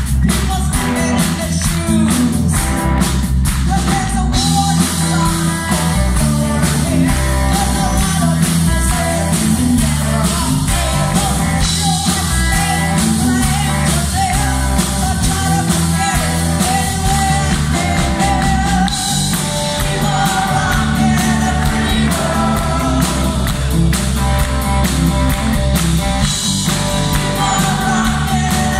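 Live rock band playing loudly, with electric guitar, bass guitar and a woman singing lead, heard from within the concert audience.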